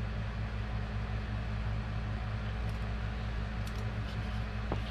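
Steady low mechanical hum with a faint regular pulse, like a running motor or idling engine, with a few faint clicks near the end.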